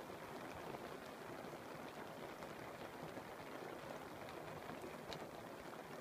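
Steady rain on a yurt's canvas roof, heard from inside the yurt, with scattered single drops ticking out of the hiss; the most distinct drop comes about five seconds in.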